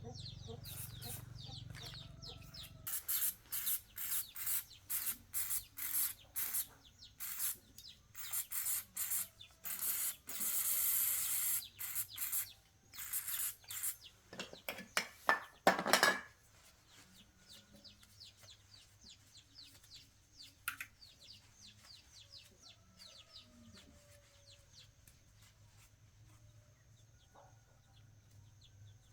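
A run of short, loud rasping strokes, about one or two a second, with one longer hiss in the middle, stopping about halfway through. Birds chirp faintly throughout.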